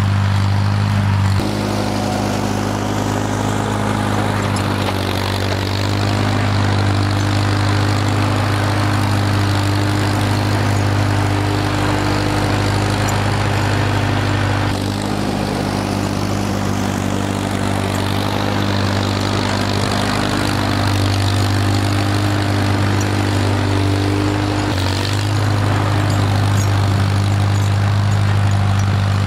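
Farmall M tractor's four-cylinder gasoline engine running steadily while pushing snow, its pitch stepping a few times.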